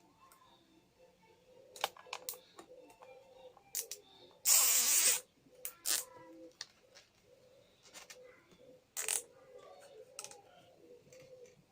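Scattered clicks and small knocks of hand work on small parts, with one loud hissing rustle lasting under a second about four and a half seconds in.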